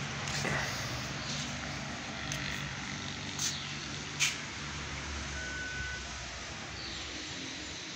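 A motor vehicle engine running steadily, with two sharp clicks about three and a half and four seconds in and a short high beep a little past the middle.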